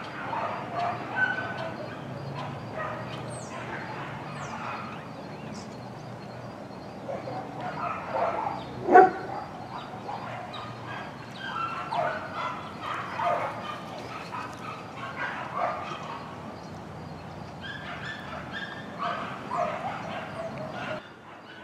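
Many short animal calls repeating irregularly, the loudest about nine seconds in.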